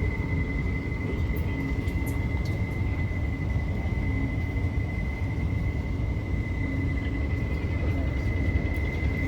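Steady low rumble with a constant high-pitched whine: the background noise on the open deck of a cruise ship under way.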